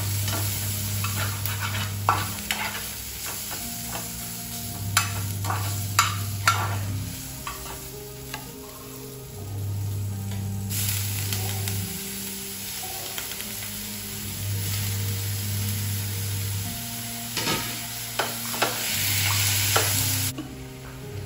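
Food sizzling as it fries in a non-stick frying pan on a gas burner, stirred with a spatula that clacks and scrapes against the pan several times. Soft background music with slow low notes runs underneath.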